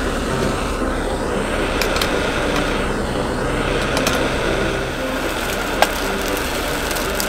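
Sausages sizzling in a frying pan, a steady hiss with a few sharp pops, under the drone of a passing engine.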